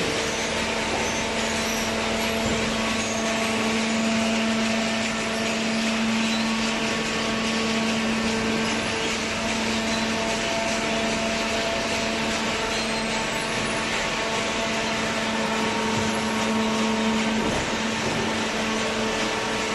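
Hydraulic vertical cardboard baler running: the electric motor and hydraulic pump give a steady hum over even mechanical noise.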